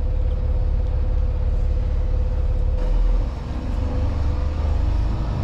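Semi-truck engine and road rumble heard inside the cab: a steady low drone with a faint steady whine above it, the rumble changing and briefly dropping about three seconds in.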